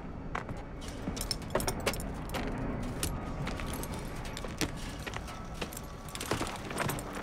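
A horse's saddle and bridle tack jingling, with scattered clicks and knocks of hooves and gear, as a rider mounts the horse.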